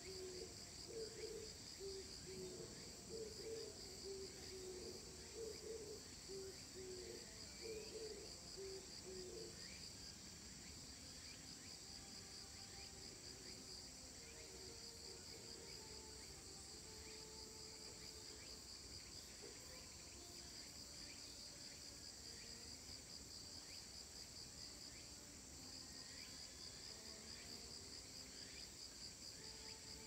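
Insects chirring steadily in a high, fine pulsing trill. For the first several seconds a faint low, choppy call sounds underneath, and faint short chirps come and go.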